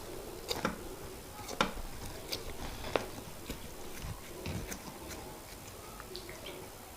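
Close-miked eating of semolina fufu with oha soup: scattered soft, wet clicks and smacks, a few per second, some a little louder than the rest.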